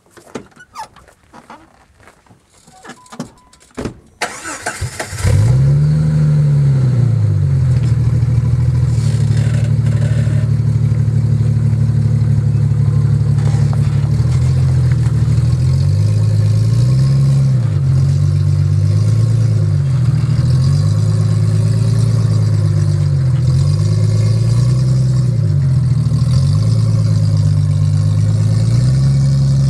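Jeep ZJ Grand Cherokee's 4.0-litre straight-six with a fart-can exhaust tip cranking and starting about five seconds in, after a few light knocks. It then runs loud through the exhaust, revving up and down again and again under load as the Jeep crawls up a steep bank.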